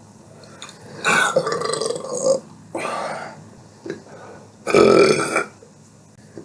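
A person burping three times: a long burp about a second in, a shorter one just before the middle, and the loudest one near the end.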